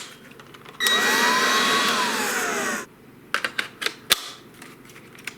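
Battery-powered cordless leaf blower running for about two seconds: a rush of air with a motor whine that rises and then falls, starting and stopping abruptly. A few light clicks follow.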